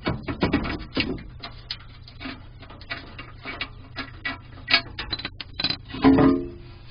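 Irregular clicks, knocks and scrapes of a skid plate under a GMC Jimmy being worked free as its last bolt comes out, with a louder knock about six seconds in.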